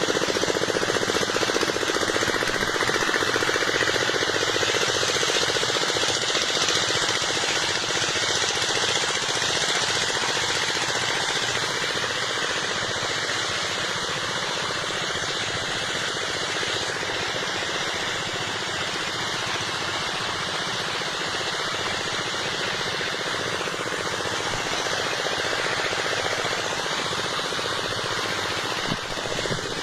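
Diesel engine running steadily under load, driving three aerators off the one engine.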